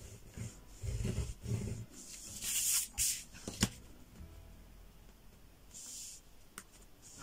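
A dotting tool scraping along a ruler as fold lines are scored into paper, between sounds of the sheet and ruler being slid and handled on the table. A sharp click comes about three and a half seconds in.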